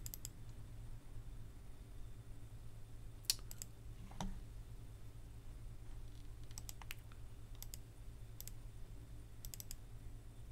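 Computer mouse clicks, scattered singles with some quick double and triple clicks, over a faint steady low hum.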